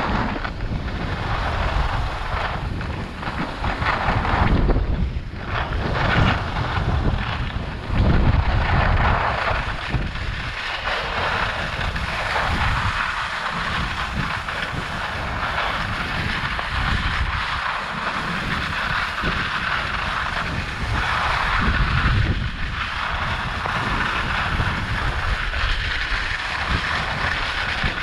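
Alpine skis (Rossignol Experience 84 AI) sliding and carving on groomed snow, a steady scraping hiss, under wind buffeting the helmet-mounted camera's microphone. The wind rumble gusts hardest in the first several seconds, and the ski hiss grows more even from about a third of the way in.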